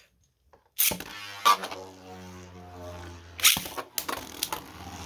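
Two spinning tops, Wizard Fafner and a 3D-printed top, launched into a Beyblade stadium about a second in with a sudden loud rush. They then spin with a steady droning whir and clash with sharp hits several times.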